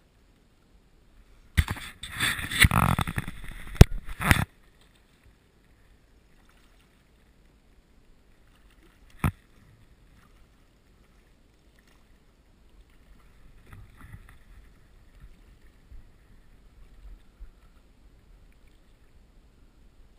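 A hooked tiger trout splashing and thrashing at the surface for about three seconds, then a single sharp click later on, and fainter, scattered water sounds after that.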